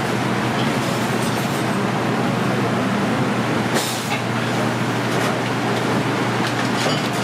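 Steady, continuous rushing roar of a busy restaurant kitchen, with a short sharp sound about four seconds in.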